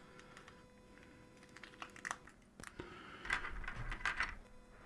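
LEGO bricks being handled and pressed together. There are a few separate sharp clicks, then a busier run of clicking and rattling about three seconds in.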